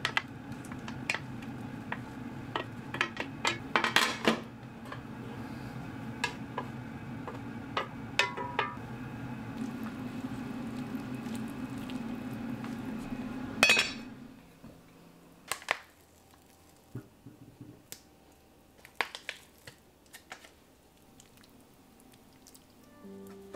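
Vegetables going into an enamelled cast-iron pot of simmering soup and being stirred with a wooden spatula, with knocks and clinks against the pot over a steady hum from the induction hob. About 14 seconds in the hum stops, leaving only a few light clinks of a metal ladle against the pot.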